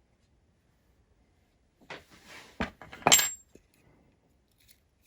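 A brief rustle and a knock, then a sharp metallic clatter with a short high ring as a small metal object hits a hard surface, a little past halfway.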